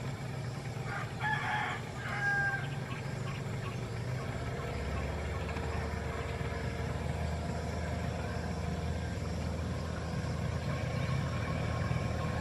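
Small boat outboard motors running at a steady low hum, which deepens about five seconds in. A bird call, loud and pitched, comes about a second in, with a shorter note just after it.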